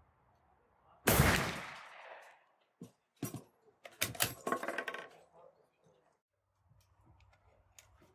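A single rifle shot from a Dutch M1871/88 Beaumont bolt-action firing an 11x52R cartridge, about a second in, its report trailing off over about a second. Then the bolt is worked, a run of sharp metallic clicks and clatter as the action is opened to eject the spent case.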